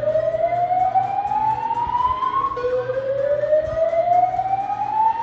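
Hotel fire-alarm system sounding its slow-whoop tone, the building's early alert signal. It is a loud tone that glides steadily upward in pitch, ends about two and a half seconds in, then starts again low and climbs once more.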